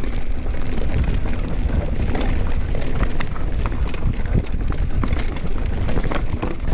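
Mountain bike riding fast downhill over dry, rocky dirt: a continuous rumble of tyres and wind on the microphone, broken by frequent irregular knocks and rattles from the bike over bumps.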